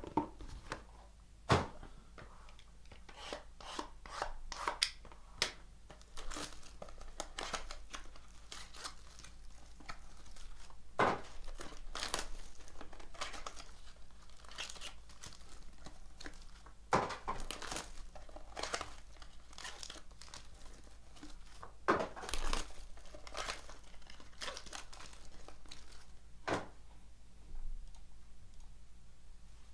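Trading card box and foil packs being torn open and handled by hand: wrapper crinkling and tearing, with irregular sharp snaps and taps, the loudest about a second and a half in and around 11, 17 and 22 seconds.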